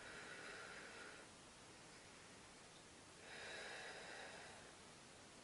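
Faint breathing: two soft breaths, one in the first second and a longer one about three seconds in, over near-silent room tone.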